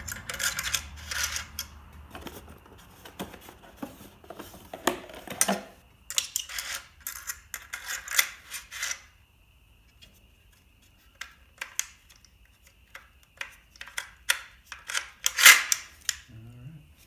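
Strips of full-head framing nails sliding and clicking into a 21-degree framing nailer's magazine, with metal rattles and clicks from the magazine and its pusher lock. The loudest clatter comes about fifteen seconds in.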